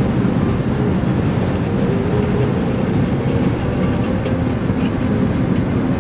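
Steady low rumble of road and wind noise inside a car's cabin at freeway speed.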